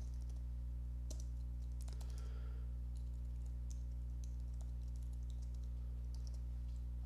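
Faint computer-keyboard keystrokes and clicks, a few scattered taps at a time, over a steady low hum.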